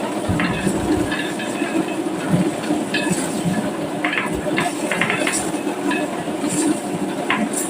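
Marbles rolling down a wooden slope track: a steady rolling rumble with frequent sharp clicks and knocks as they hit the wood and each other.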